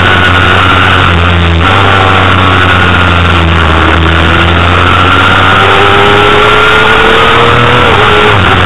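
Honda CBR250RR's high-revving 250 cc inline-four racing engine, loud on the bike's onboard camera, held at high revs through corners. Its pitch climbs steadily over several seconds and drops sharply near the end as it shifts up a gear.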